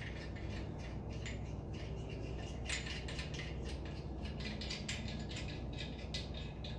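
Irregular light metallic clicks and clinks of hand tools being handled, over a steady low hum.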